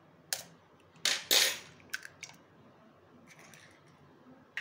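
An egg being cracked open over a bowl: a light tap, then a louder crack with a short crunch of shell about a second in, followed by a few small clicks.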